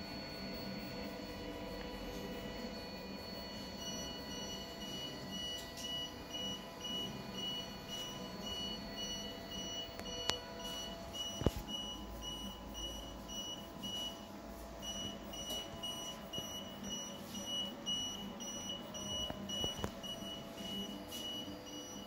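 Electronic buzzer beeping rapidly and evenly, the alarm that the cabinet door is standing open, with a short break about fourteen seconds in. Two sharp clicks come around ten and eleven and a half seconds in, the second one the loudest sound.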